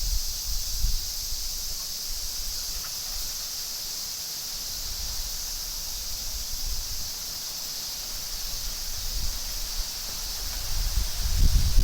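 Strong wind rushing through trees with leaves rustling, gusting hardest at the start and again near the end, where it buffets the microphone; a steady high insect chirring runs underneath.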